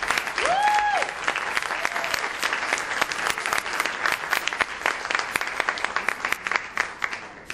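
Audience applauding: dense, continuous clapping that thins out near the end. About half a second in, one short rising call stands out above it.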